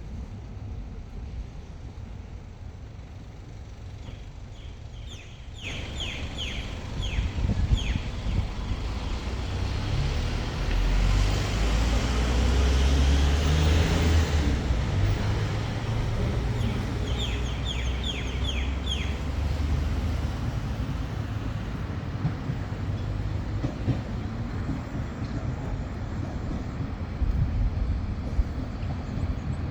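KiHa 48 series diesel railcar pulling away: a low diesel engine rumble comes up about five seconds in, is loudest a few seconds later as the train passes, then runs on steadily.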